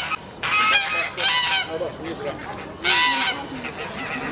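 Waterfowl giving loud honking calls: three in quick succession, then another about three seconds in.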